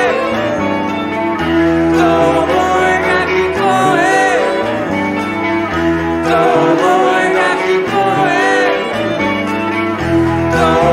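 Rock band playing live: electric guitars over bass and drums, with a lead melody bending up and down in pitch over a stepping bass line.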